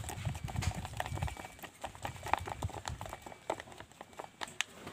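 Metal spoon stirring thick paint in a thin plastic cup: irregular clicks and scrapes of the spoon against the cup wall, with a low rumble in the first second or so.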